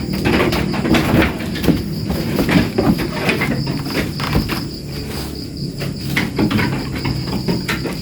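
Young goat kids moving about in their pen, giving irregular knocks and scuffs, over a steady high-pitched whine.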